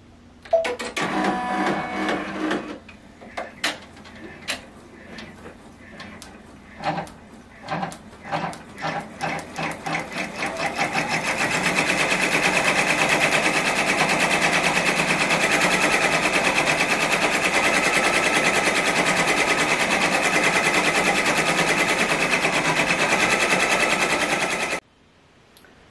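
Brother PR1055X ten-needle embroidery machine starting a design. After a short start-up noise, single needle strokes come faster and faster over several seconds until it settles into a steady, fast stitching rhythm. The stitching stops abruptly near the end.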